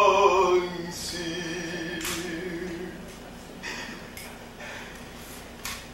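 A man's voice singing a drawn-out note that slides down and fades about half a second in, followed by a softer held hum until about three seconds in. A few faint short noises follow.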